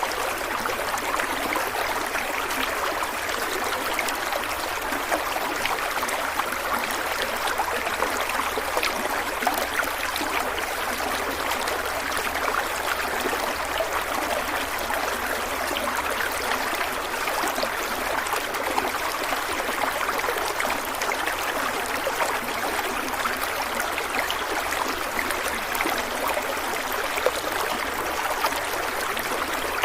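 A stream of water running and splashing steadily, with a dense, even rush and many small trickling splashes.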